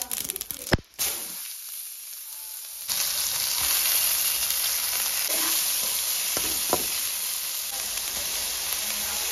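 Sliced onions and green chillies frying in oil in a pan: a steady sizzle that comes in loud about three seconds in, after a quieter stretch. A few short clicks sound over it midway.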